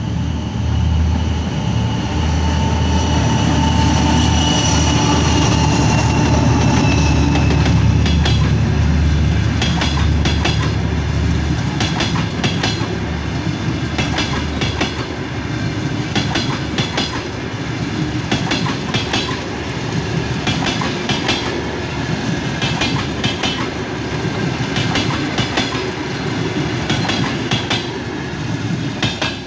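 2TE10M diesel locomotive, with two-stroke 10D100 engines, running past with a deep engine drone and a high whine that falls in pitch over the first several seconds. Then passenger coaches roll by with a regular clickety-clack of wheels over the rail joints.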